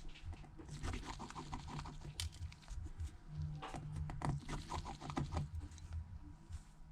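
Irregular light clicks and taps of a small precision screwdriver and tiny screws handled on an iPhone 7 Plus's internal brackets, as the screws are taken out and set down in order.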